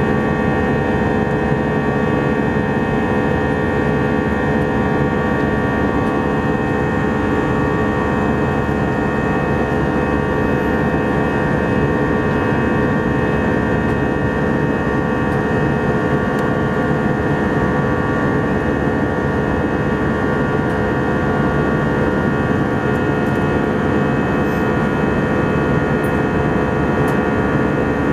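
Airbus A319 jet engine and airflow noise heard inside the cabin in flight: a steady, unchanging rush with several steady whining tones on top.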